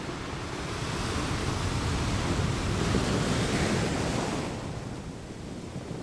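Ocean surf: a steady wash of waves that builds over the first few seconds and eases off about four and a half seconds in.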